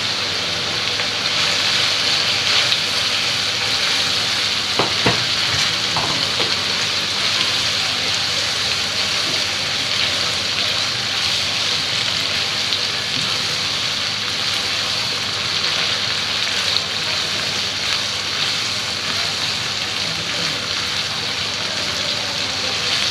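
Onion and boiled vegetables frying in hot oil in a pan: a steady sizzle, with a few knocks from stirring about five seconds in.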